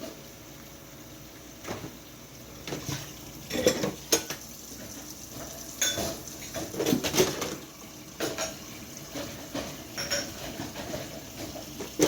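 Dishes and cutlery clinking and knocking as they are loaded into a dishwasher: a scatter of separate clinks, some with a short ring.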